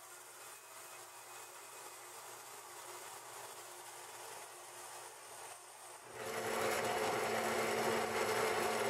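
Vertical bandsaw cutting sheet steel: a quiet steady hum for about six seconds, then abruptly much louder, a steady rasp with a held whine.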